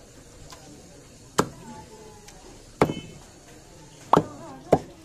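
Large butcher's cleaver chopping raw chicken breast on a wooden log chopping block: four sharp chops, the last two close together.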